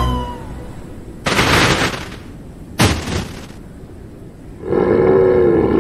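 Cartoon sound effects of a toy tracked rover crash-landing in snow: the end of a falling whistle, then two short crashing impacts about a second and a half apart. Near the end a long, loud roar from a voice begins.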